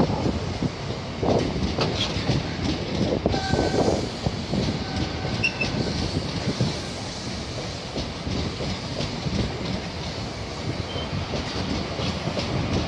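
First Great Western HST's coaches rolling past at the platform: a steady rumble with wheels clattering over rail joints, and a few brief faint wheel squeals.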